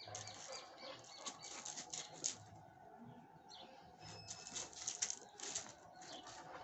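A dog sniffing close up in clusters of short, quick puffs, with faint bird chirps in the background.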